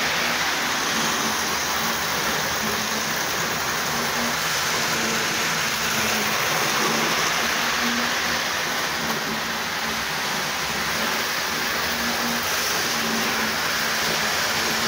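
Hornby model trains running on the layout's track: a steady whirring, rolling noise of small motors and wheels on rail, with a low hum that comes and goes.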